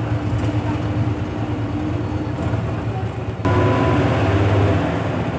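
Engine and road noise of a moving express bus heard from inside the cabin: a steady low drone with a low hum. About three and a half seconds in it changes suddenly and gets a little louder and brighter.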